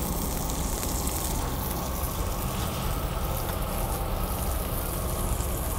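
Steady sizzling hiss of pork pieces grilling on a tabletop barbecue grill, their fat dripping onto the heat.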